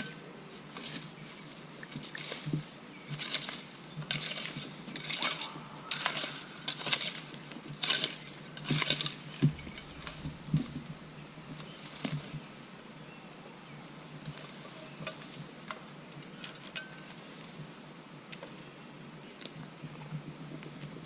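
Irregular rustling and scraping of brush and debris being handled, in bursts for the first twelve seconds or so, then only a faint background.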